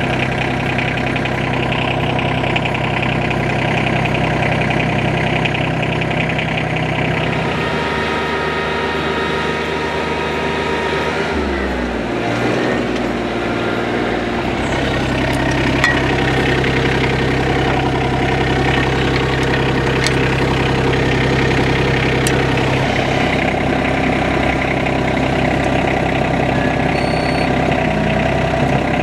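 TYM T25 compact tractor's Yanmar diesel engine running steadily as the tractor drives down a trailer ramp and across the ground, with a change in engine speed about twelve seconds in.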